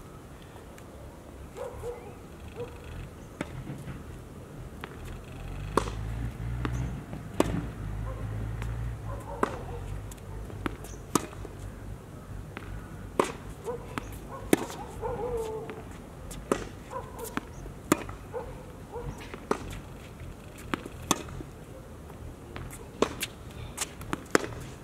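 Tennis rally on a hard court: sharp racket strikes on the ball and ball bounces, a steady run of crisp pops roughly every second.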